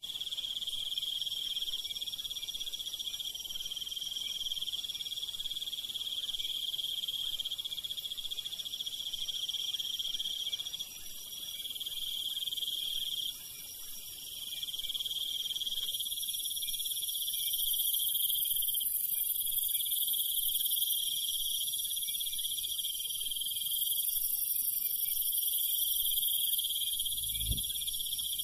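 Night chorus of crickets and other insects trilling steadily at several high pitches, with a low thump near the end.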